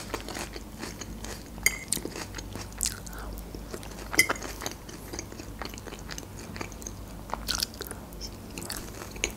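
Close-miked chewing and crunching of Caesar salad, with a few sharp clicks scattered through it.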